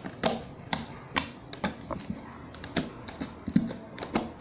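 Homemade glue slime being folded and pressed, making a run of sharp clicks as trapped air pops out: about two a second at first, then quicker, smaller ones.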